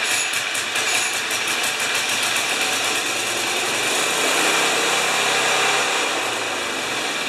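Craftsman snowblower's small engine running steadily, its note changing slightly about four seconds in.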